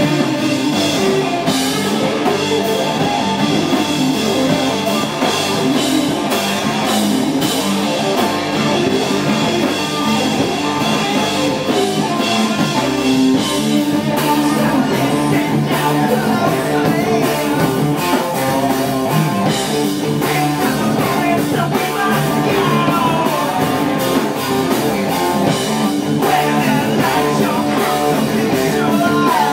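Live rock band playing with two electric guitars, electric bass and a drum kit, loud and continuous.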